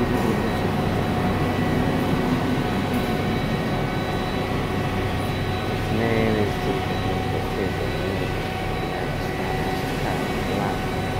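New York City subway train noise: a steady rumble with a constant hum of several steady tones, and a brief wavering sound about six seconds in.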